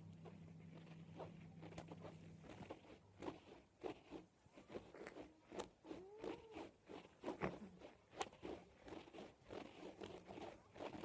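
Exotic shorthair cat playing: from about three seconds in, a busy run of quick clicks and scuffs, with a couple of short squeaky noises that rise and fall near the middle. A low hum stops about two and a half seconds in.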